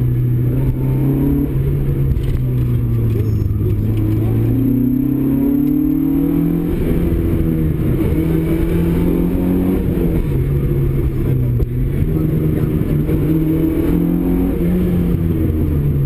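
Opel Kadett GT/E rally car's four-cylinder engine heard from inside the cabin, driven hard, its revs rising and falling repeatedly.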